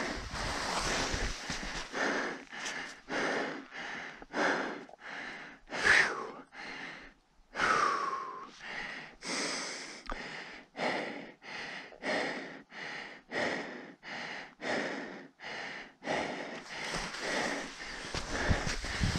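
A ski tourer breathing hard and fast close to a helmet-mounted camera's microphone, about one and a half breaths a second, out of breath from climbing up to the top of the chute. Two short voiced sighs come in the middle.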